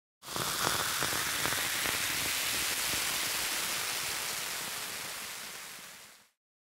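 A steady hiss of noise, with a few faint crackles in the first second or so. It starts abruptly and fades out near the end.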